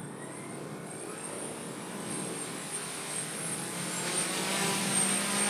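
Twin electric-motor rotors of a 3D-printed tiltrotor model running up to hover, a steady whirring hum with a high whine that grows gradually louder. It needs high throttle to hover because the wings block much of the rotors' downwash.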